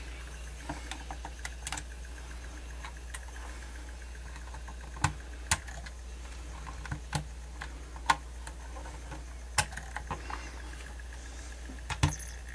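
Scattered sharp plastic clicks and taps from a Sony D-142CK Discman CD player being handled and its case pressed, small ones at first and louder ones from about five seconds in, over a steady low hum.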